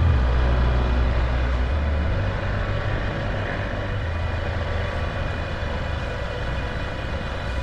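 Motorcycle engine running on the move, recorded from the bike itself, with a steady rumble and road noise. The deep low rumble is heaviest for the first two seconds, then eases.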